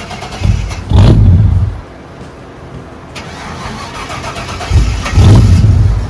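A 5.7-litre V8 pickup engine, exhaust running with no muffler and only a resonator, cranked in two loud bursts about four seconds apart without settling into a run: a failed start, which the crew then puts down to low fuel.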